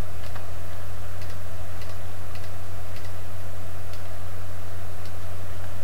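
Steady low hum with faint, irregular mouse clicks about once a second as graphics are drawn on screen with the mouse.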